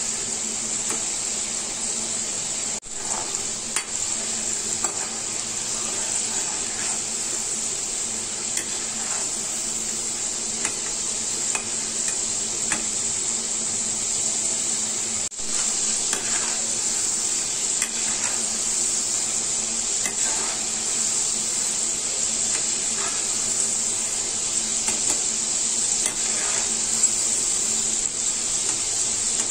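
Soaked chana dal deep-frying in hot oil in a metal kadhai: a steady sizzle as the wet lentils cook toward crisp. A perforated steel spoon stirs and scrapes through the pan now and then.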